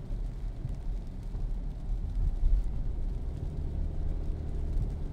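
Car cabin road noise while driving on a rain-soaked street: a steady low rumble from the tyres and engine.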